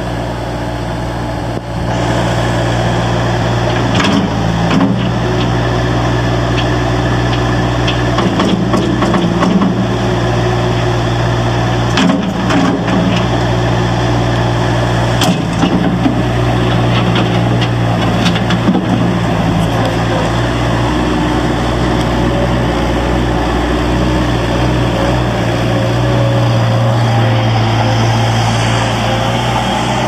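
Bobcat 753 skid steer loader's four-cylinder diesel engine running steadily as the machine drives and turns, with occasional clanks and knocks from the loader scattered through the middle.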